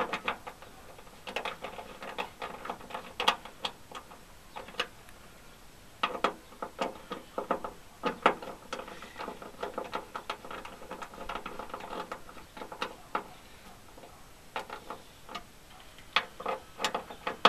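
Hand ratchet with a T30 Torx bit clicking in quick runs as it tightens the bolts of a door retaining strap bracket, in several bursts with short pauses between strokes.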